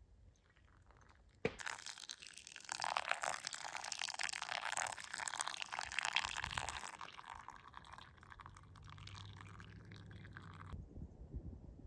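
Hot water poured in a thin stream from a gooseneck kettle onto coffee grounds in a paper filter of a pour-over dripper. It starts suddenly about a second and a half in, is strongest in the first half, grows weaker, and stops shortly before the end.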